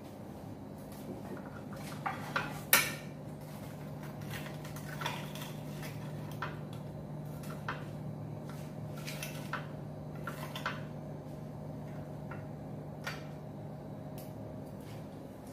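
Knife and fork clinking and scraping on a ceramic plate while cutting crumb-fried fish, with scattered light clicks and a sharper clink about three seconds in. A steady low hum runs underneath.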